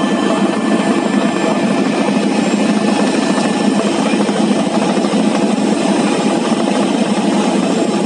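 Helicopter engine and rotor running steadily and loudly, heard on board in flight.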